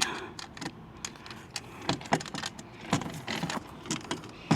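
Scattered metallic clicks and knocks of bolts and mounting hardware being handled and worked into a car awning's brackets, with a few sharper knocks about two, three and four and a half seconds in.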